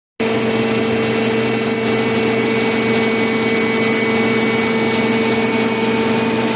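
Hydraulic power unit of a 630-ton scrap metal baler running: a steady, unchanging hum with a constant whining tone.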